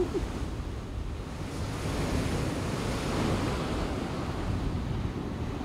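Storm surf breaking over rocky shore, with wind: a steady wash of noise that swells about two seconds in.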